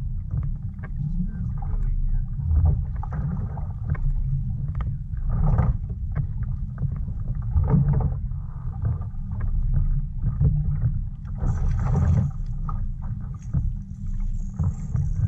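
Steady low wind rumble on a head-mounted action camera's microphone, broken by frequent knocks and splashes of water and gear against a fishing kayak as a fish is brought alongside with lip grips.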